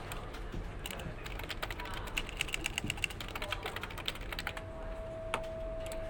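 Typing on a computer keyboard: a quick run of key clicks, thickest through the middle, over a low steady hum, with a faint steady tone coming in near the end.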